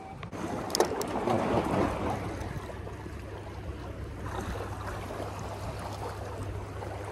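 Small sea waves washing and lapping against lava rocks, swelling and easing, with a sharp click about a second in.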